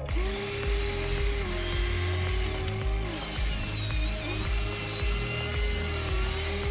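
Huina 593 1/14-scale RC excavator's hydraulic pump whining in two runs of about three seconds each, starting and stopping, with the pitch dipping slightly partway through a run. Background music with a steady beat plays throughout.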